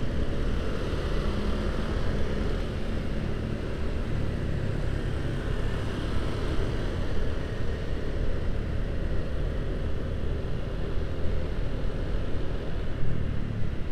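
A motorcycle running steadily in city traffic, heard from the rider's own bike, with a steady low hum of engine and road noise.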